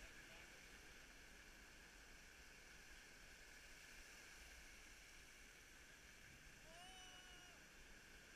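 Near silence: a faint steady hiss, with one faint, short pitched call near the end.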